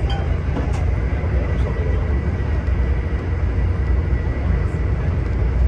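Steady low rumble of an LRC passenger car running at speed on the rails, heard from inside the car, with a faint high whine through the first half.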